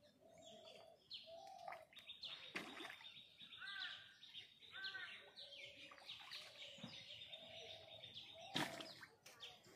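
Faint birdsong: many short chirps and calls, some arched, some short held notes. Near the end there is one sharp, brief sound, the loudest moment.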